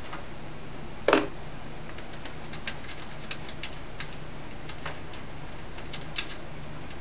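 Thumb screws being taken out of a desktop computer case's side panel and set aside: one louder clack about a second in, then light, irregular clicks.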